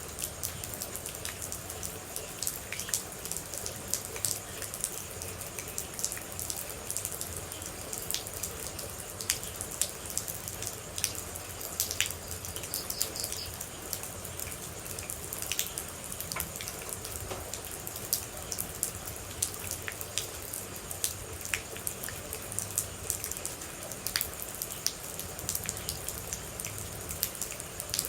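Rain falling, with many separate water drops landing close by as irregular sharp ticks over a steady hiss.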